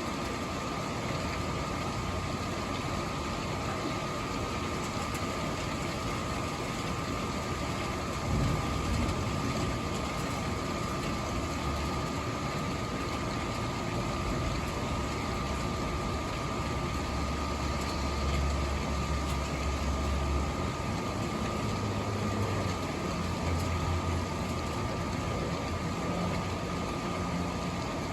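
Steady rush of a thunderstorm's wind and rain with a constant high hum, and low rumbles of thunder about eight seconds in and again through the second half.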